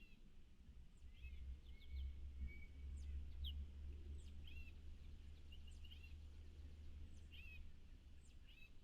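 Small birds chirping, with many short, high calls and a few brief downslurred notes scattered throughout, faint, over a steady low rumble.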